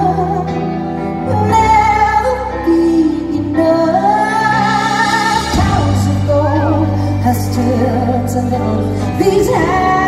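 A woman singing a ballad live into a microphone, holding long notes with a wavering vibrato, over a band accompaniment.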